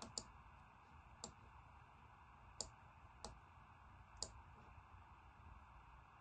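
Computer mouse clicking: about six sharp single clicks at irregular spacing in the first four seconds, with faint steady room hiss.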